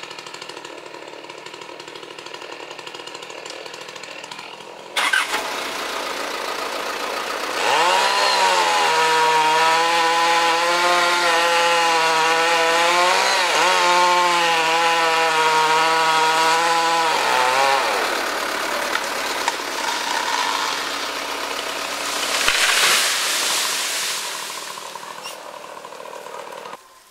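Chainsaw running at a steady idle, then revved to full throttle about eight seconds in and held for some ten seconds, cutting into the trunk of a Cadaghi tree with its pitch sagging briefly under load. The revs drop a little past the middle, and a short loud rushing noise follows.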